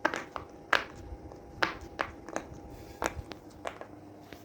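Silicone pop-it fidget toy having its bubbles pressed one at a time: a string of sharp little pops, roughly one every half to one second, softer toward the end.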